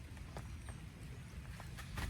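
Irregular taps of raindrops striking tent fabric over a steady low rumble.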